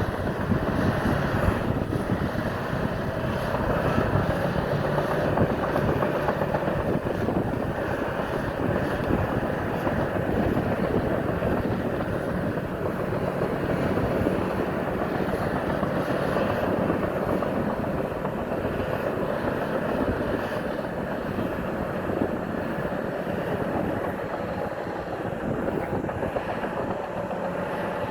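Bulldozer's diesel engine running steadily, a continuous even drone.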